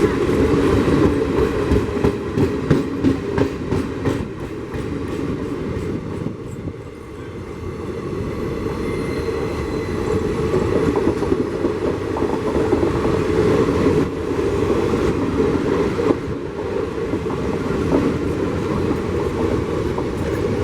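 Coaches of an express passenger train passing at speed: a steady rushing rumble, with the wheels clacking rhythmically over the rail joints.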